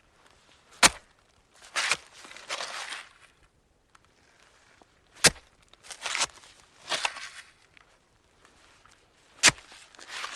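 Garden hoe chopping into soil three times, about four seconds apart. Each sharp strike is followed by a second or so of scraping and rustling as the loosened earth is pulled and turned.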